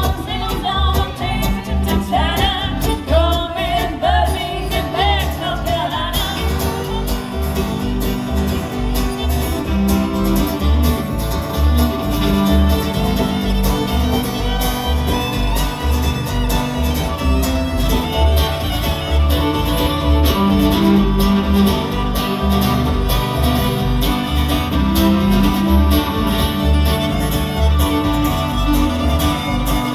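A guitar, fiddle and bass trio playing a tune together over a steady rhythmic bass pulse.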